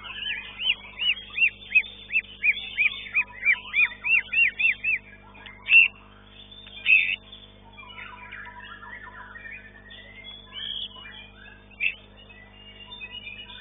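White-rumped shama (murai batu) singing: a quick run of about a dozen repeated whistled notes, each rising and falling, then two loud single notes and softer mixed chatter, over a steady low hum.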